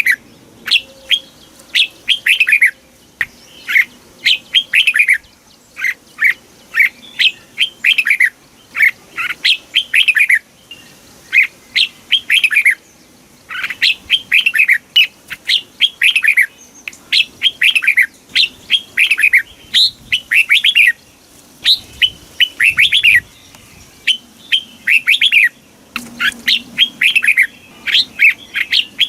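Red-whiskered bulbul singing: an unbroken run of short, bright phrases, each a few quick whistled notes that sweep downward, with brief pauses between phrases.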